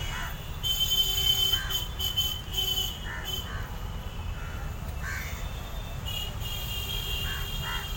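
Birds calling: short harsh calls every second or two over a steady high chirping.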